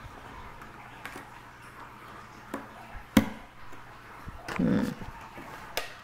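Cardboard jigsaw puzzle pieces knocking and clicking on a wooden tabletop as they are picked up and set down: a few separate sharp clicks, the loudest a little past three seconds in, and a short duller rustle shortly after.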